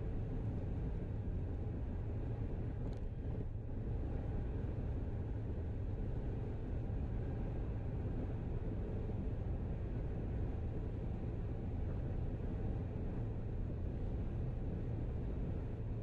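Steady low rumble of road and tyre noise from a car cruising at highway speed, heard from inside the car. A faint click comes about three seconds in.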